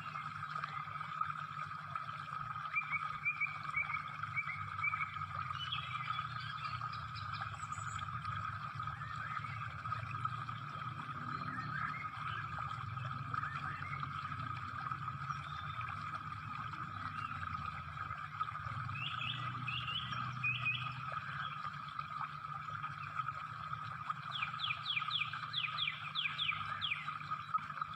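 Steady outdoor chorus of calling animals, with a low hum underneath and birds chirping now and then; near the end a bird gives a quick run of about a dozen chirps.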